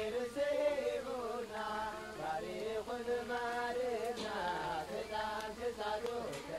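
Background music: a voice singing a slow, chant-like melody with long, gliding held notes.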